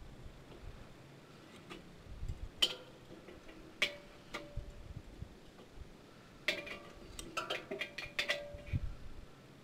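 A metal hand tool clinking and tapping against a charcoal kettle grill's wire grate and charcoal briquettes as lit coals are pushed into place. Irregular sharp clicks, some with a brief metallic ring, come in small clusters and are busiest about two thirds of the way through.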